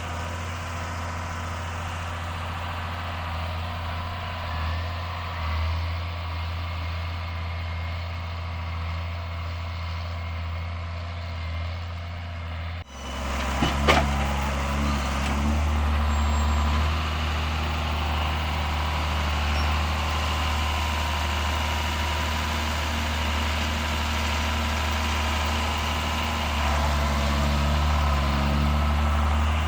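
John Deere 7610 tractor's six-cylinder diesel engine running steadily. A little under halfway through the sound breaks off, a couple of sharp knocks follow, and the engine runs on slightly louder.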